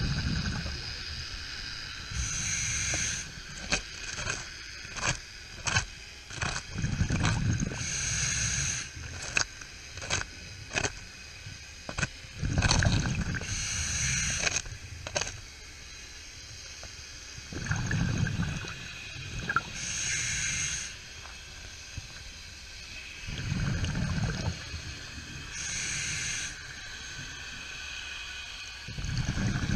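Scuba diver breathing through a regulator underwater: a short hiss on each inhale and a low bubbling rumble on each exhale, five breath cycles about six seconds apart, with a scatter of sharp clicks over the first half.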